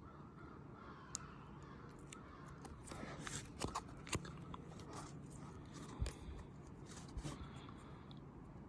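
Faint rustling and scattered light clicks of baseball trading cards being handled.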